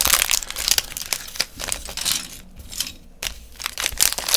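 Small plastic bag of Lego pieces crinkling as it is handled, with the loose plastic pieces clicking against each other. The rustling thins out in the middle and picks up again near the end.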